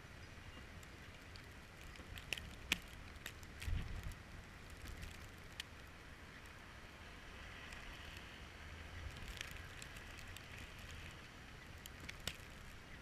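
Faint snowy street ambience at night: a steady low rumble of traffic with a light hiss, dotted with scattered sharp small clicks and ticks and a brief low bump a little under four seconds in.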